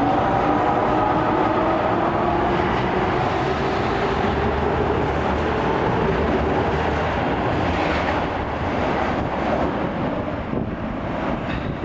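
Osaka Subway Series 22 train pulling out of the station: the traction motors' whine rises in pitch at first, then gives way to steady wheel and running noise that slowly fades as the train leaves.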